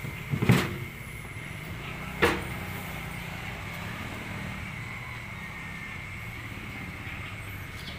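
Two sharp knocks about a second and a half apart, over a steady low hum with a faint high steady tone.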